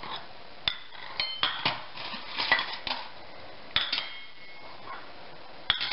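Small ceramic plates clinking as they are set down on a hard tabletop: a string of sharp clinks, several of them ringing briefly.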